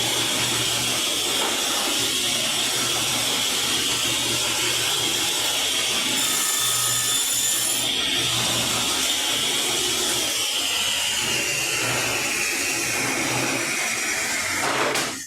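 Electric saw running steadily as it cuts MDF, with a high whine that slowly sinks lower over the last few seconds before the sound drops away sharply at the end.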